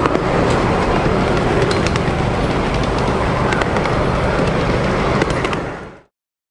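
Open-air miniature train running, heard on board: a steady rumble and clatter with many small clicks. It cuts off about six seconds in.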